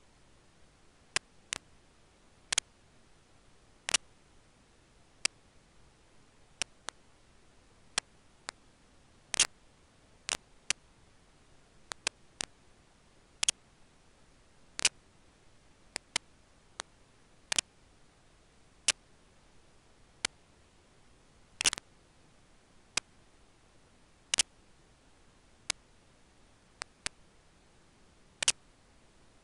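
Sharp, irregular clicks, roughly one a second and some in quick pairs, over a faint steady hiss.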